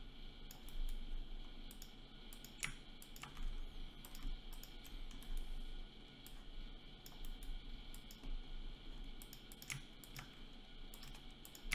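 Irregular clicks of a computer mouse and keyboard, some singly and some in quick little runs with gaps between, over a faint steady electrical hum.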